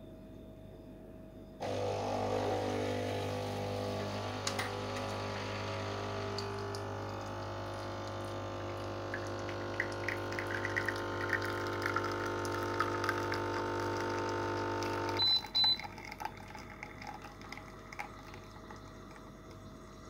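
A 19-bar capsule espresso machine brewing: its pump starts about two seconds in and hums steadily while coffee runs into the cup, with some sputtering in the second half. The pump cuts off suddenly after about fifteen seconds, followed by a couple of clicks and faint drips.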